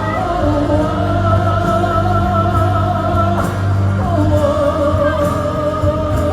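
Live pop music: a singer holding long, slightly wavering notes over band accompaniment with a steady, strong bass.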